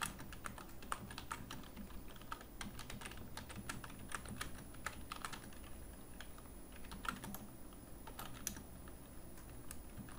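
Faint typing on a computer keyboard: quick, irregular keystrokes, thinning out to scattered taps in the second half.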